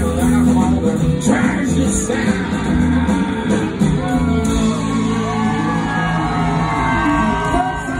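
Live country band playing on stage, with acoustic and electric guitars and a voice singing or shouting over the band.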